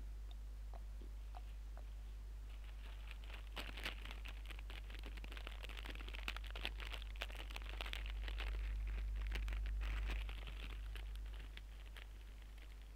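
Steady low electrical hum, with a dense crackling rustle of many small clicks from a couple of seconds in until about eleven seconds.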